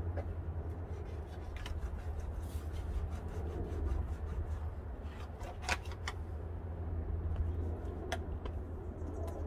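Dental floss being sawn behind a car's rear badge to cut its adhesive tape: faint rubbing with a few sharp small clicks, over a steady low hum.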